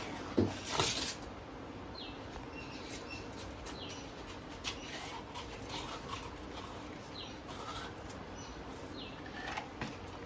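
Short, falling bird chirps every few seconds over a faint steady background, with two sharp knocks about half a second and a second in.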